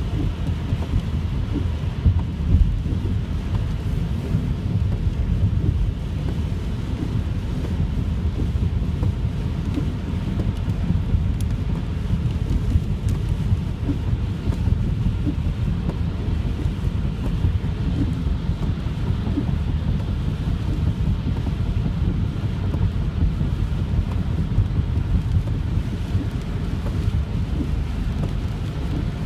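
Heavy rain on a car driving on a wet freeway, heard from inside the cabin: a steady low rumble of tyres and wind under the hiss of the rain.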